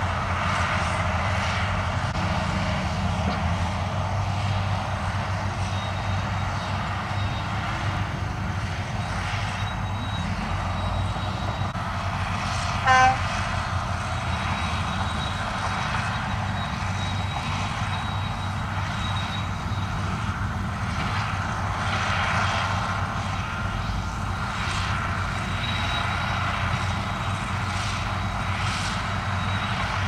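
Diesel engines of heavy dump trucks running steadily, a low rumble, while the raised tipper bodies unload soil. About halfway through, one short, loud horn beep.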